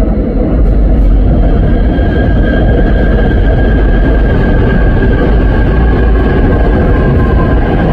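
Seoul Subway Line 4 electric train running past at close range: a loud, steady rumble of wheels on the rails, with a steady high whine that comes in about a second and a half in.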